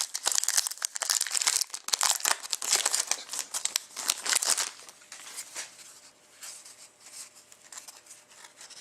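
A hockey trading-card pack wrapper being torn open and crinkled, busy and crackly for the first four to five seconds, then fainter rustling and handling of the cards.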